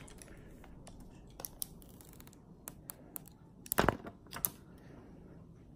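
Light clicks and taps of an iPhone XS Max and a clear screen protector being handled on a table, with two louder knocks a bit past halfway.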